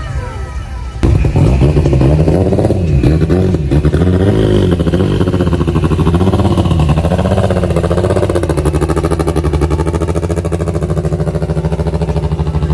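Honda Civic hatchback's engine, loud, cutting in suddenly about a second in and revved up and down in repeated blips, then settling to a steady, even note for the rest of the time.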